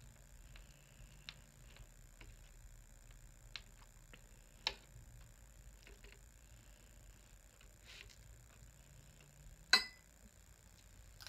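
Eating utensils clicking against a plate: scattered soft ticks, a sharper one about four and a half seconds in, and a loud clink with a brief ring near the end.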